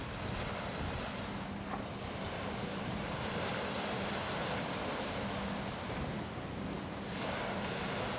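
Ocean surf washing on the shore, the noise swelling and easing every few seconds, with wind on the microphone and a faint steady low hum beneath.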